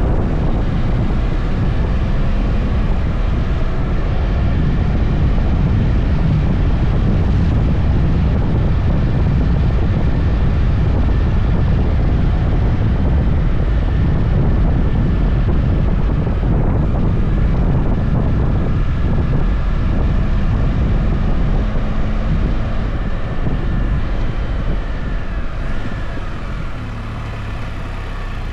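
Wind buffeting the microphone over the steady running of a 2020 Can-Am Spyder's three-cylinder engine at road speed; the engine eases off slightly near the end.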